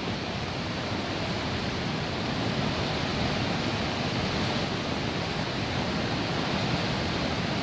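Steady roar of a fast, muddy river in flood, its torrent of water rushing past without a break.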